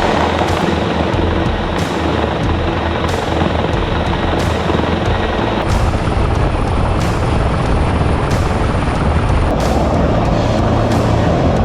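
Helicopter rotor and engine running steadily overhead, mixed with heavy rushing wind noise across the microphone while hanging beneath the helicopter in flight.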